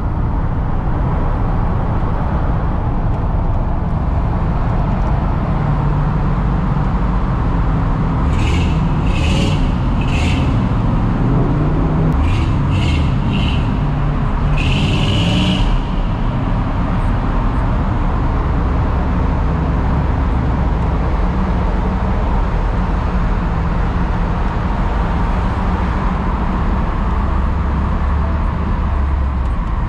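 Steady engine and road rumble inside the cab of a 1993 Ford Lightning pickup cruising on the highway, its 5.8-litre V8 running smoothly on a freshly replaced starter. Around the middle come three short high-pitched sounds, then three more, then a longer one.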